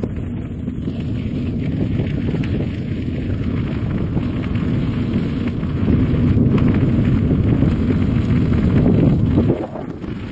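Wind buffeting the microphone of a camera on a moving bicycle, mixed with tyre rumble on a gravel path: a steady low rumbling noise that dips briefly near the end.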